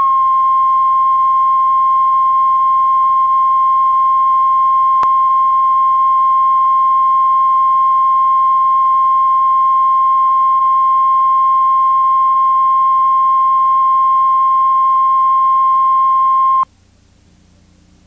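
Steady, unbroken reference beep tone, the line-up tone that goes with colour bars at the head of a video tape, cutting off suddenly about a second and a half before the end and leaving only faint tape hiss. A single faint click comes about five seconds in.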